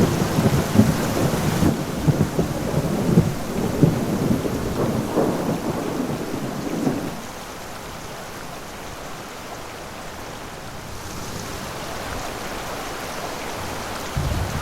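Heavy rain and rushing floodwater with a low rumble, louder for about the first seven seconds, then dropping to a quieter steady rush.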